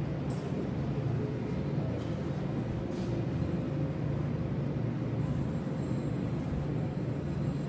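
Steady low rumbling background noise with a faint constant hum, unchanging throughout.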